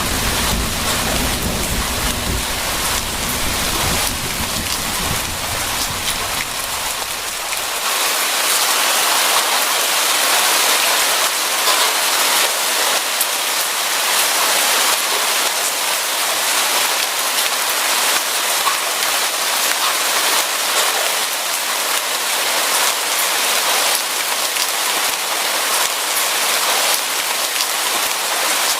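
Steady heavy rain falling. A low thunder rumble underlies it for the first several seconds and cuts off abruptly, leaving only the rain.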